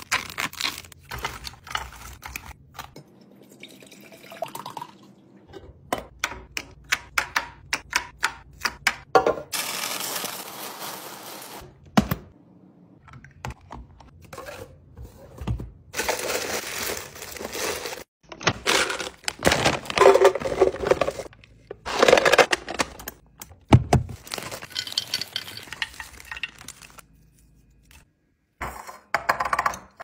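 Plastic snack wrappers crinkling and rustling, with many light clicks and taps as individually wrapped snacks are dropped into a clear plastic storage bin.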